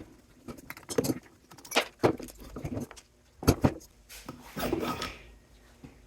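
Metal parts being handled as a cooling unit is taken apart by hand: a few separate knocks and clinks, with a stretch of scraping and rubbing near the end.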